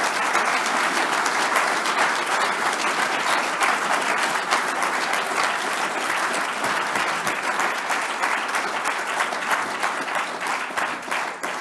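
Audience applauding steadily at the close of a speech, the clapping dying away near the end.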